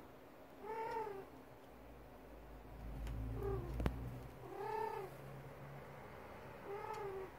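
Female cat in heat calling: four meows, each rising then falling in pitch, about two seconds apart, the second one short. This is the mating call of a queen in season. A sharp click comes about four seconds in.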